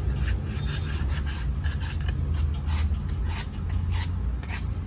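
Sandpaper rubbed back and forth over a motorcycle's brake shoe lining in short, even strokes, about three a second. This is the lining being cleaned and lightly roughened to take off the dirt that makes the brake squeal.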